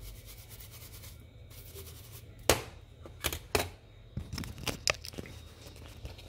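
Handling noises at a repair bench: one sharp click about two and a half seconds in, the loudest, then a run of smaller clicks and scrapes, over a steady low hum.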